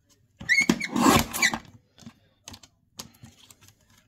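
Mini paper trimmer's cutting arm pressed down through a strip of cardstock: a loud, crunching cut lasting about a second, starting about half a second in, followed by a few light clicks as the arm is lifted and the strip is taken out.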